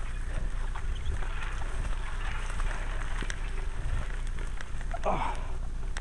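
Tall grass and crop stalks rustling and swishing against a mountain bike and its camera as the bike is pushed through dense vegetation, with scattered snaps and a low rumble underneath. About five seconds in comes a short vocal sound that falls in pitch, like a grunt of effort.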